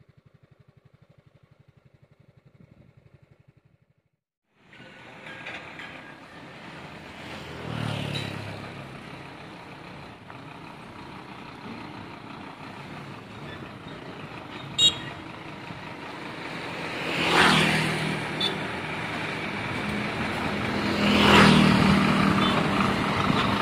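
Heavy diesel trucks on a gravel road, the sound building as a Scania tractor unit with a low-bed trailer approaches. There is a single sharp click near the middle, and two loud swells of engine and road noise in the second half, the last the loudest. The first few seconds are faint, with a low rapid pulsing.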